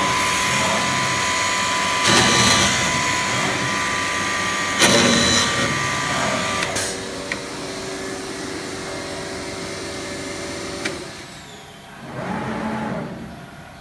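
PTP CNC router machine running, a steady whine with louder bursts of noise about two and five seconds in. The whine drops away about seven seconds in, and the sound falls off about eleven seconds in before a short louder spell near the end.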